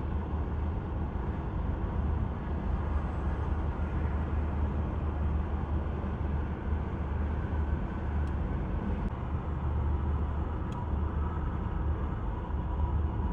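Steady low rumble of an idling car engine, with a few faint clicks.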